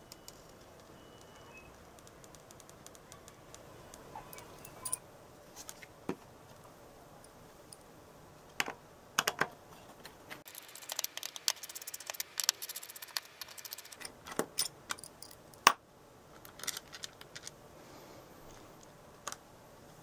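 Hands handling a Lego Technic Hub and its small plastic parts and tools on a tabletop: scattered sharp plastic clicks and knocks, with a few seconds of rapid clicking near the middle.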